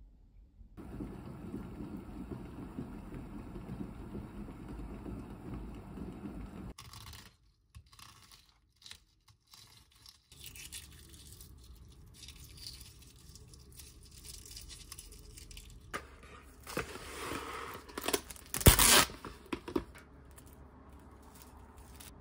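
Hands peeling a hard-boiled egg, with faint scattered cracking and rustling of shell. This is followed by louder crinkling and tearing of a thin plastic bag of bamboo skewers, with one sharp snap about three quarters of the way through. A steady low hum fills the first third.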